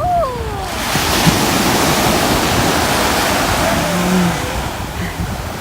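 Ocean surf: a wave breaking and rushing up the beach, swelling about half a second in and fading away near the end.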